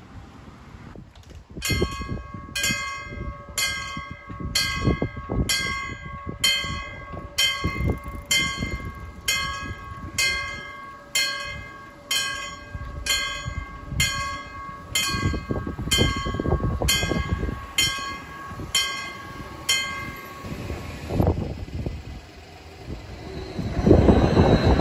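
Level-crossing warning bell ringing in even strokes, about one and a half a second, while the barriers lower; it stops about two-thirds of the way through. A Stadler Tango light-rail train then approaches, its noise rising near the end.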